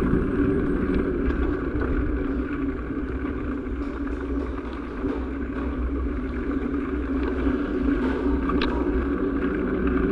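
Small motorcycle engine running steadily at low road speed, with wind and road noise.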